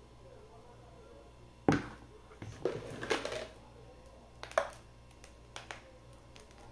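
Kitchen handling sounds over a steady low hum: a plastic batter bowl set down on a stone counter with one sharp knock, then a metal spoon clattering and scraping against the bowl, and a few light clicks as chocolate chips are dropped onto the batter.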